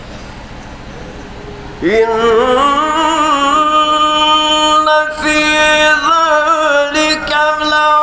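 Male qari beginning melodic Qur'an recitation (tajwid): about two seconds in, a strong voice enters on a long held note that swells and bends through small ornaments, and the voice carries on to the end. Before it, only a steady low hum.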